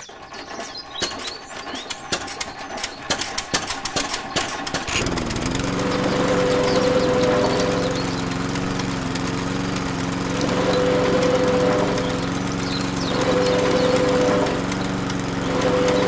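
A toy diesel-engine model starting up, driving a miniature sugarcane crusher by a belt. It rattles with quickening clicks, then settles about five seconds in into a steady engine-like hum, with a higher whine that swells and fades several times.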